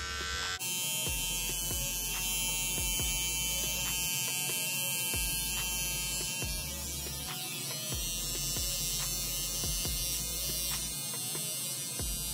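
Electric hair trimmer buzzing steadily while it trims the top edge of a mustache, with scattered faint clicks.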